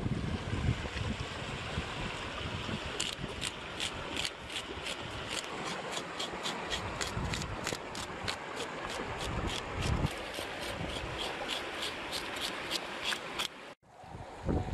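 A knife scraping scales off a fish on a rock in quick, even strokes, about three a second, over the steady rush of a fast stream. The sound cuts off suddenly near the end.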